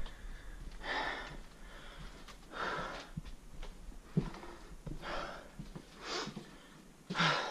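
A man breathing heavily close to the microphone, about five hissing breaths spaced a second or so apart, with a single knock about four seconds in.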